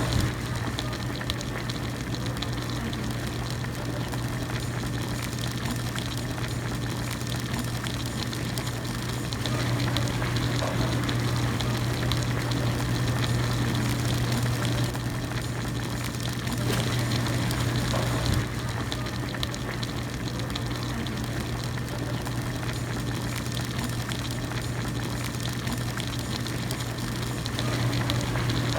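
Hot pot broth at a continuous rolling boil, bubbling steadily, over a steady low hum.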